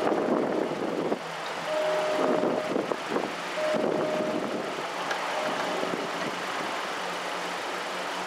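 Safetran mechanical crossing bell ringing and cutting off about a second in as the crossing gates rise, followed by street traffic with car engines idling.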